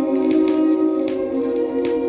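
Music played from a vinyl record on a turntable: held, sustained chords with short percussive taps over them.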